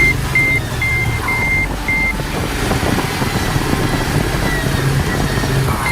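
Heavy vehicle's engine running steadily, with a reversing alarm beeping about twice a second that stops about two seconds in.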